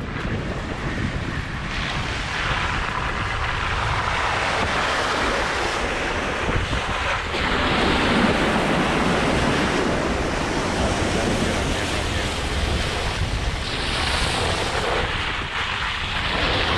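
A Jeep driving through mud and water holes: a rushing, splashing noise over a rough engine rumble that swells and eases several times, with wind buffeting the microphone.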